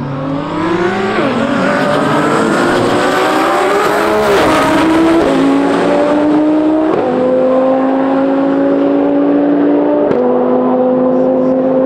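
A race car's engine accelerating hard at full throttle. Its pitch climbs and drops back at each of about five upshifts, the last gears pulling long and nearly level.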